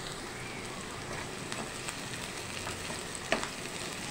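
Sliced onions and chopped garlic sizzling in mustard oil in a coated kadhai as a steel spoon stirs them: a steady sizzle with a few light scrapes and taps of the spoon on the pan, the sharpest about three seconds in.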